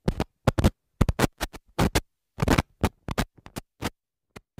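Logo-animation sound effect: a rapid, irregular string of short, choppy noise bursts that stops suddenly at the end.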